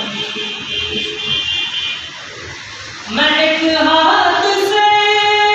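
A man singing a naat unaccompanied, holding long drawn-out notes. The voice fades for about a second and comes back in strongly after about three seconds.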